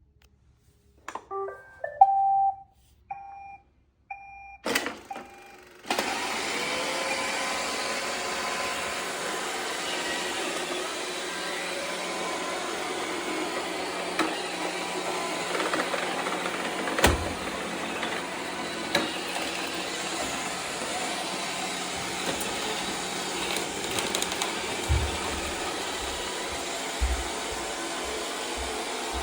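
iRobot Roomba 675 robot vacuum playing a short electronic beep tune, then its vacuum motor and brushes start up about five seconds in and run steadily. A few dull thumps come in the second half.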